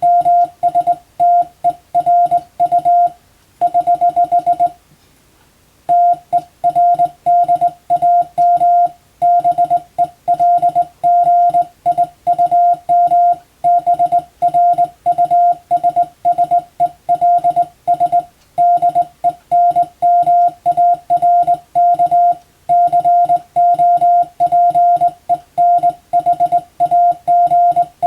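Morse code (CW) sending practice: a single steady beep keyed rapidly on and off into dots and dashes, with one pause of about a second around five seconds in.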